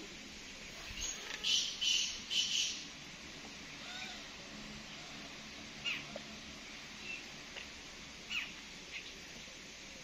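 Common mynas calling: three harsh, grating squawks in quick succession about a second in, followed by scattered short whistles and chirps.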